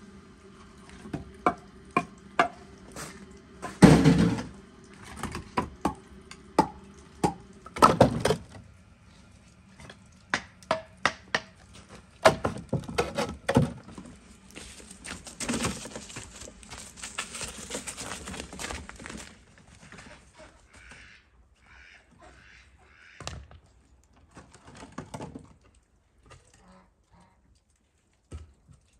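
Split firewood logs knocking and clattering as they are picked off a woodpile and dropped onto each other, with the two loudest thuds about four and eight seconds in. This is followed by a few seconds of continuous rough scraping noise, and then a few quieter wooden knocks as logs are set down.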